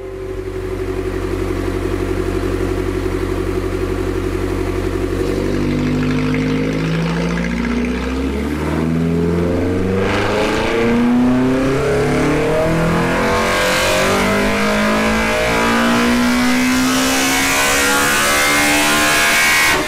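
Big-cam Toyota 4A-GE 1.6-litre twin-cam four-cylinder on individual throttle bodies, held steady for about five seconds, then revving up smoothly under full throttle in a chassis-dyno pull, its pitch climbing until near the end. This is the baseline pull at normal cam timing.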